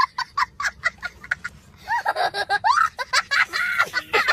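A young child laughing hard. First comes a quick run of short giggles, about five or six a second, then longer high-pitched laughs that rise and fall in pitch.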